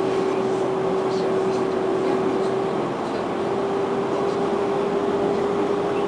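Steady running noise inside a Konstal 105Na tram, with a constant humming tone throughout that shifts slightly about halfway through.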